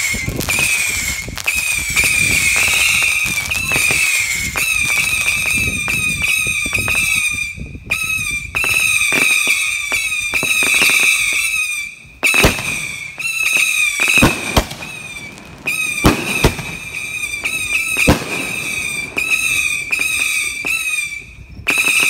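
Fireworks going off in quick succession: a high, wavering whistle runs almost without a break over sharp bangs and crackling. The whistle drops out briefly a few times.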